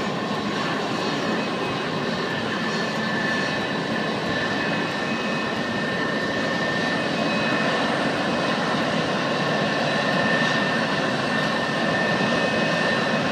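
Boeing 747-200F freighter's four jet engines running at taxi power: a steady rush of engine noise with a high, steady whine on top, growing slightly louder after about eight seconds as the jet rolls past.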